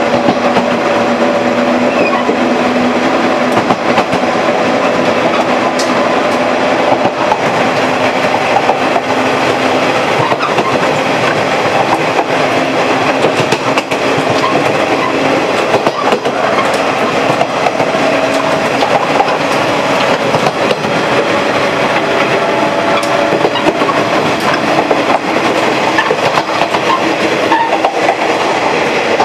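Diesel railcar running along the line: a steady engine drone with the wheels clicking over the rail joints.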